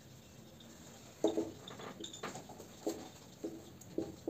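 Dry-erase marker writing on a whiteboard: a series of short squeaks and scrapes from the felt tip, about five strokes a second or less apart.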